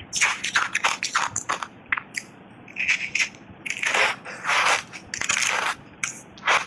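Mouth biting and chewing refrozen block ice coated in milk powder, with loud crunches: a quick run of short crunches in the first second and a half, then several longer crunches through the middle.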